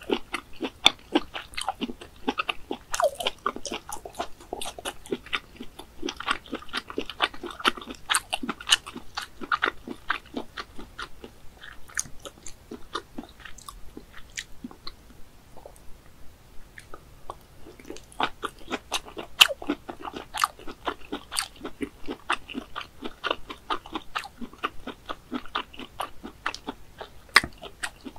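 Close-miked chewing of soft snail meat: a steady run of clicking mouth sounds, with a quieter spell around the middle.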